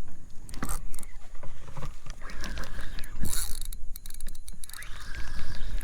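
Fishing reel being cranked and handled in irregular bursts of clicking and rattling while a hooked fish is reeled in.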